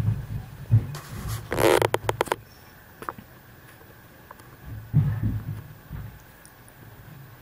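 Domestic tabby cat purring close to the microphone, a low rumble that swells and fades with its breathing. About one and a half seconds in comes a short burst of crackly rustling.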